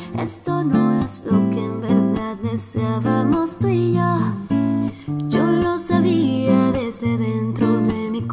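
Acoustic guitar picking chords as accompaniment to a woman singing a pop ballad in Spanish, her voice coming in with gliding, wavering phrases over the guitar.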